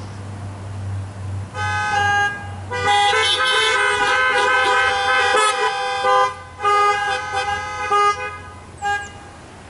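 Several car horns honking in overlapping blasts, some long and some short. They start about a second and a half in and die away near the end. The congregation in parked cars is returning the sharing of the peace with their horns.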